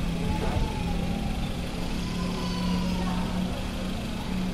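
Steady low hum of an idling engine, with rough low noise underneath.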